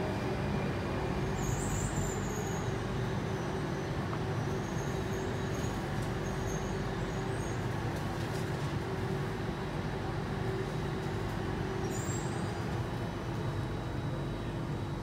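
Interior running noise of an Alstom C830 metro train: steady rumble of wheels on rail with a constant hum from the traction equipment, growing gradually a little quieter as the train slows.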